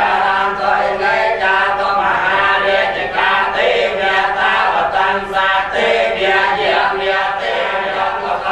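A group of Cambodian Buddhist monks chanting together in unison, a continuous, evenly paced recitation of many low male voices.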